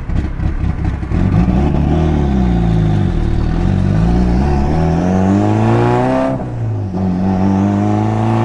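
Turbocharged 4G63 inline-four of a 500 whp Mitsubishi Lancer Evolution VIII, heard from inside the cabin while accelerating. The engine note climbs for several seconds, drops sharply about six seconds in at a gear change, then climbs again.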